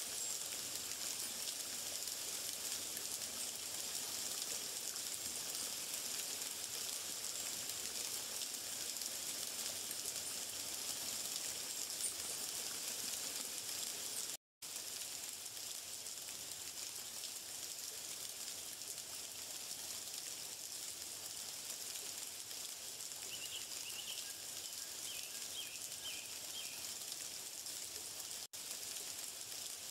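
Steady outdoor nature ambience: an even, high hiss, with a few faint chirps about two-thirds of the way through. The sound cuts out for a moment about halfway.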